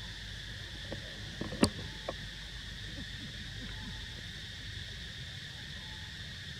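Insects droning steadily in the forest in two high bands, with a few short sharp clicks, the loudest about a second and a half in.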